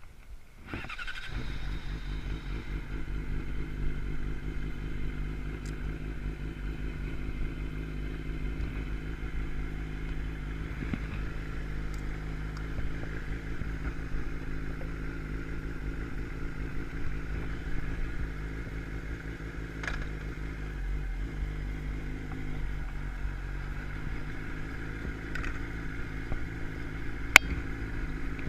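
Sport motorcycle engine starting about a second in, then idling steadily. A single sharp click comes near the end.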